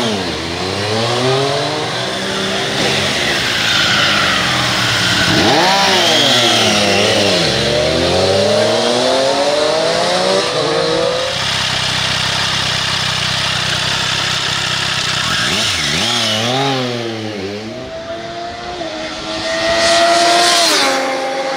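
2020 Triumph Street Triple RS 765 cc inline three-cylinder engine with its Euro 5 exhaust, revving up and down. The pitch climbs and drops several times, with a long climb from about six to eleven seconds, a stretch of steady running, and another climb near the end. The speaker calls its sound fairly civil and smooth.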